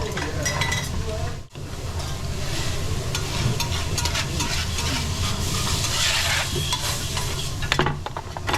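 Food sizzling on a teppanyaki griddle while the chef stir-fries it, with repeated clicks and scrapes of metal spatulas on the hot steel. The sizzle breaks off for an instant about a second and a half in.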